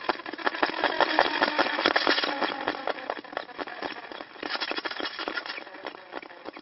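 Car wheel spinning: a dense, crackling rattle of many small clicks that starts suddenly, is loudest in the first couple of seconds and gradually fades.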